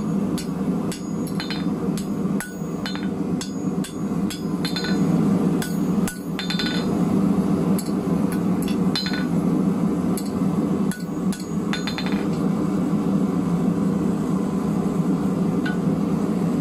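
Hand hammer striking a red-hot 12 mm round steel bar on the anvil, bending its end over into a hook: quick blows, two or three a second, some with a short metallic ring from the anvil. The hammering stops about twelve seconds in, leaving a steady low drone.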